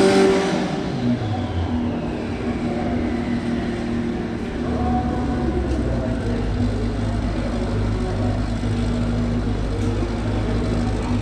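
A drag car passes at speed right at the start, its engine note falling in pitch as it goes by and fading over about two seconds. After that, a steady low hum of engines running carries on.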